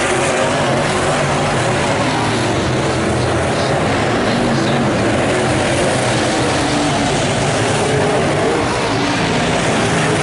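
Late model sedan race cars' V8 engines running hard around a dirt oval, several at once blending into a loud, steady drone whose pitch wavers as cars pass.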